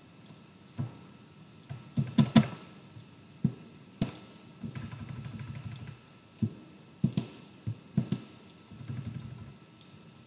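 Scattered clicks of a computer mouse, some in quick pairs, with low rubbing of the mouse sliding across the desk between them.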